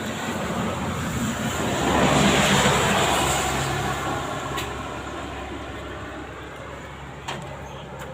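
A passing vehicle: its noise swells to a peak two to three seconds in, then slowly fades away. Two short clicks come later.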